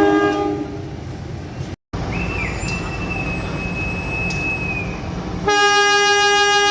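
Indonesian diesel locomotive air horns sounding the S35 signal. A many-toned horn chord dies away in the first second; after a break comes the low rumble of a train with a thin high whine, then about five and a half seconds in a loud horn chord starts and holds.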